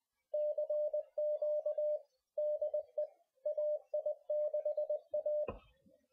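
Morse code: a steady mid-pitched beep keyed on and off in short and long elements, grouped into characters with short pauses between them, stopping just before a soft click near the end.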